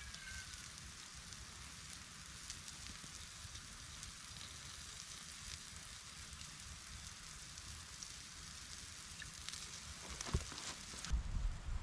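T-bone steak sizzling steadily on a grill grate over a campfire, with scattered small pops and crackles. Near the end come a few low thumps and a rumble of handling noise.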